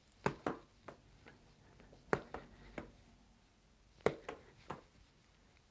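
A small ball being punched with the fist in a boxing-style striking drill: three clusters of light taps about two seconds apart, each a sharper tap followed by one or two softer ones as the ball lands.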